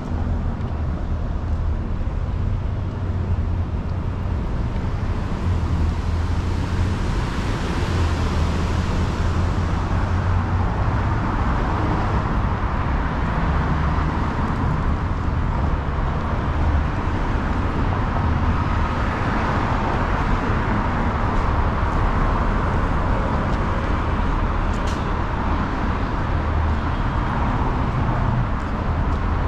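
Downtown street traffic: a steady rumble of passing cars and buses, with a brief high squeak near the end.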